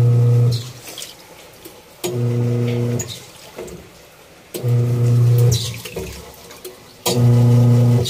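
Top-load washing machine's wash motor humming in about one-second bursts, four times at roughly two-and-a-half-second intervals, as it drives the agitator back and forth through the clothes, with water sloshing in the tub between bursts.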